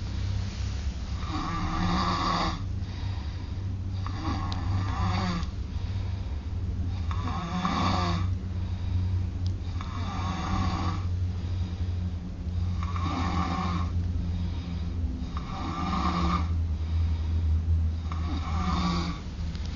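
A sleeping pet snoring in slow, even breaths, about one snore every two and a half to three seconds, over a steady low hum.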